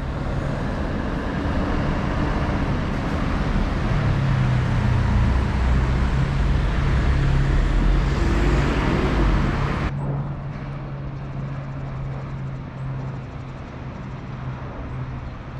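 Street ambience with vehicle traffic going by and a steady low engine hum. About ten seconds in, the louder noise cuts off abruptly, leaving quieter hum and ambience.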